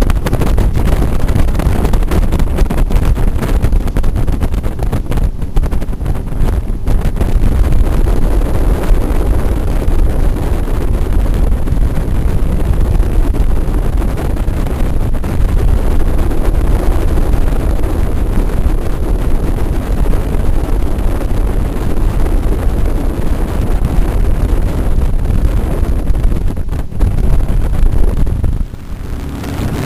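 Jetboat under way at speed: a loud, steady rush of wind buffeting the microphone over the boat's engine. Near the end the rush eases and a steady low engine hum comes through.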